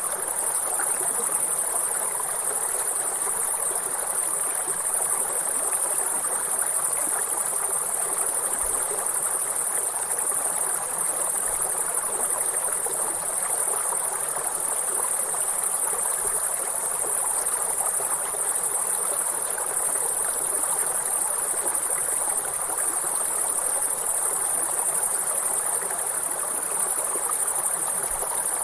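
River water flowing steadily, with a continuous high-pitched insect chorus over it.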